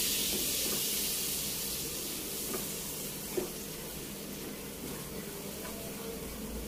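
Flour sizzling in melted butter in a non-stick frying pan while it is stirred with a wooden spatula, roasting into a roux for white sauce. The sizzle slowly dies down, with a sharp tap of the spatula against the pan a little past the middle.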